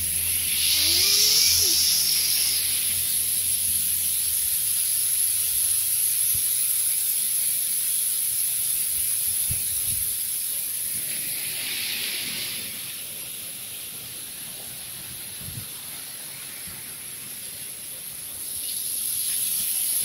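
Rushing water of a tall waterfall, a steady hiss that swells and fades, quieter for a few seconds past the middle. A steady high-pitched whine runs under it throughout.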